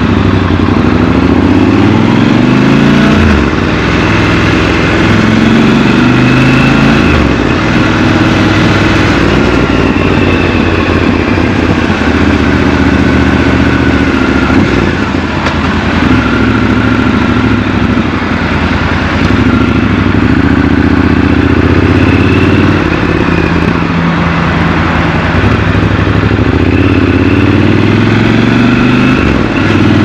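Triumph Scrambler 1200 XC's 1200 cc parallel-twin engine riding through town, its revs repeatedly climbing and dropping back with steadier stretches between.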